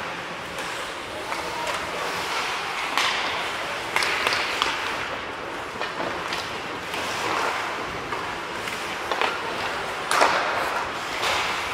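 Ice hockey being played: skate blades scraping the ice under a steady hiss, with sharp clacks of sticks and puck and knocks against the boards several times, the loudest about ten seconds in, each ringing briefly in the rink.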